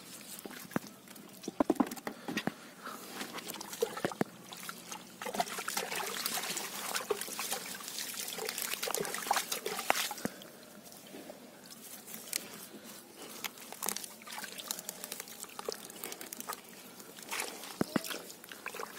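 Bare hands digging and scooping in a waterlogged mud hole: wet mud squelching and water sloshing, with irregular sharp slaps and clicks. The sharpest slaps come about two seconds in, and the wet scooping is busiest from about six to ten seconds in.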